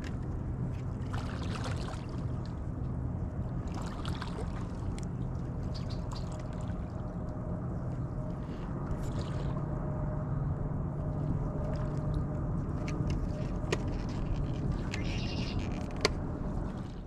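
A boat's motor running steadily at a constant pitch, with scattered small knocks and clicks and one sharp click near the end.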